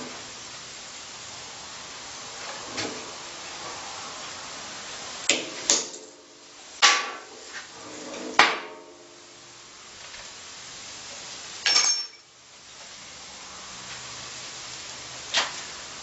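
A hammer strikes a microwave oven transformer's steel core about six times at irregular intervals, each a sharp metallic knock with brief ringing; the two loudest blows land about halfway through. A steady hiss runs underneath.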